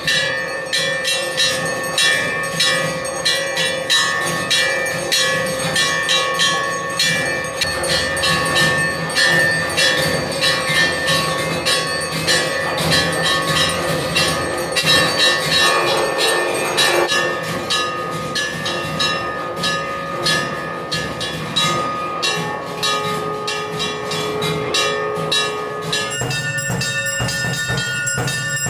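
Temple bells clanging during an aarti, a fast, continuous run of metallic strikes over held ringing tones. The ringing changes character about three seconds before the end.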